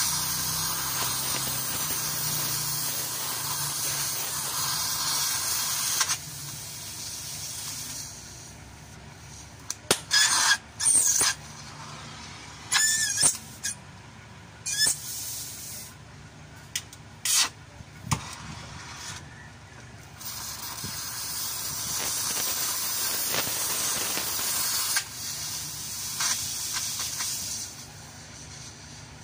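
Oxy-fuel gas torch flame hissing loudly as it heats the steel of a van chassis. The hiss falls away after about six seconds and comes back strong for several seconds later on. In between come several short, sharp high squeals.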